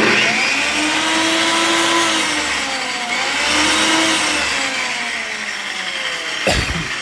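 Table saw's electric motor switching on abruptly and running at full speed, with a steady whine from the motor and blade; it now starts because the switch's dirty contacts have been cleaned. A single knock near the end.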